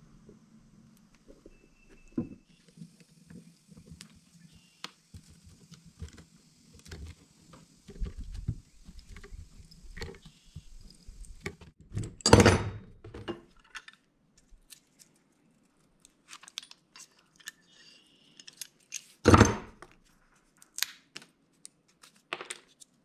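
Small hand tools and copper pins being handled on a wooden workbench while pinning a knife handle: scattered light clicks and clinks, with two louder thunks, one about halfway through and one a few seconds before the end.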